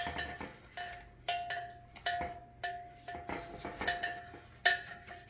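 Small metal chime on a bird feeder struck again and again, about two strikes a second, each ringing the same clear note and fading.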